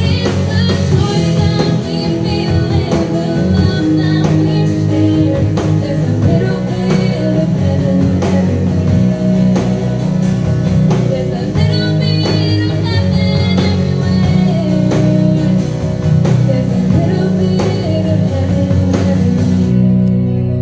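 Live band (drums, bass, guitars and keyboard) playing a pop ballad with a young woman singing lead and backing singers joining in. Near the end the drums and voices drop out, leaving a held low chord.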